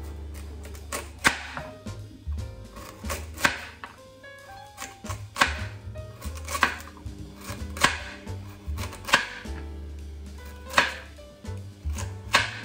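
Kitchen knife chopping through a raw carrot into a wooden chopping board, a sharp chop about once a second, over background music.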